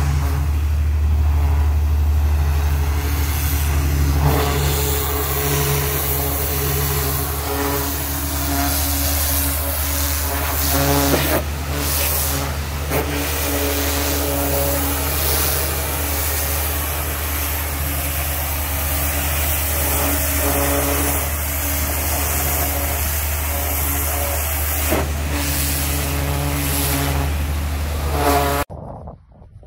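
Pressure washer running with a steady motor hum, its high-pressure water jet hissing and spattering against a boat's hull bottom and propellers; the sound cuts off suddenly near the end.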